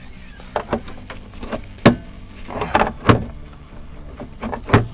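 Irregular knocks and clanks of a wrench and bolt hardware being handled, about half a dozen sharp strikes with the loudest near two, three and five seconds in, over a steady low hum.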